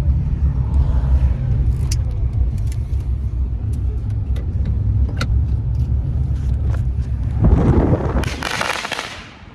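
Steady low road rumble of a moving car, with faint scattered clicks. A louder rushing noise swells from about seven and a half seconds in and fades just before the end.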